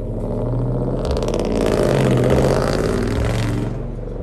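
A motor vehicle's engine running, with engine and road noise swelling to a peak about two seconds in and then easing off.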